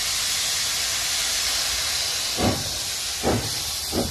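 Steam locomotive working, with a loud steady hiss of steam. From about halfway in come three heavy exhaust chuffs, roughly three quarters of a second apart.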